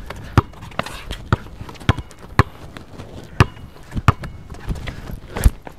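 Basketball being dribbled on an outdoor hard court: sharp bounces about every half second, with a short gap near the middle.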